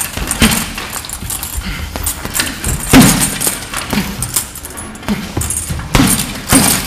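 Gloved punches landing on a hanging teardrop-shaped punching bag, about ten sharp hits in quick, uneven combinations, with a light metallic jingle from the bag's hanging chains between hits.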